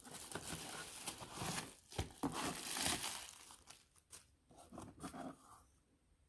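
Irregular rustling and crinkling handling noise in a small room, in uneven stretches that die away about two-thirds of the way through.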